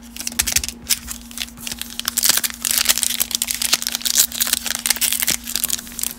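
Foil wrapper of a 2020 Donruss baseball card pack crinkling and crackling in quick, irregular rustles as fingers pick at its crimped end, trying to tear it open.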